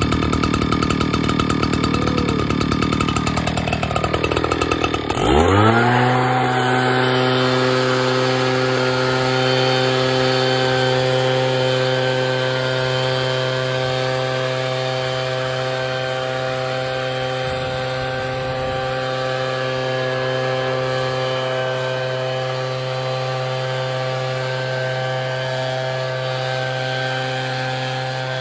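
Echo PB-9010T backpack leaf blower's two-stroke engine idling roughly, then about five seconds in throttled up quickly to a steady high-speed run with a whining fan tone as it blows air.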